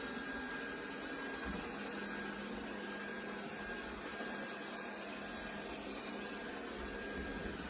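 DeenKee DK700 robot vacuum running in cleaning mode: a steady hum with a thin, constant high whine.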